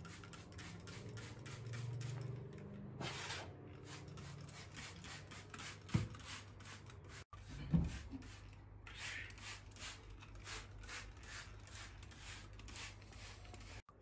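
Rhythmic scrubbing strokes, about four a second, on a kitchen sink and countertop during cleaning, with two dull knocks about six and eight seconds in.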